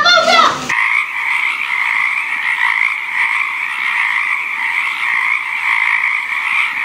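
A child's excited shout, then about a second in a dense chorus of frogs croaking cuts in suddenly and runs on steadily.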